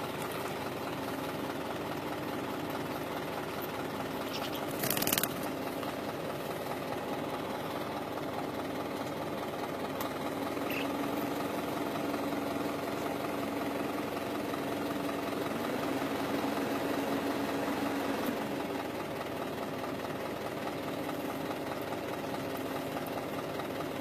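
Car engine idling steadily, heard from inside the cabin. A brief, louder sound stands out about five seconds in.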